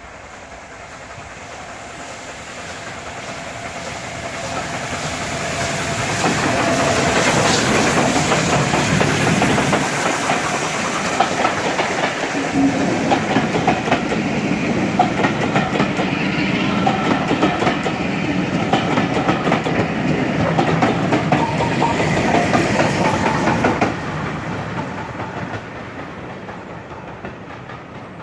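Steam-hauled passenger train passing close by. It grows louder over the first several seconds as the locomotive comes up, then the coaches roll past with wheels clicking over the rail joints. The sound drops suddenly as the last coach goes by, about 24 seconds in, and fades as the train moves away.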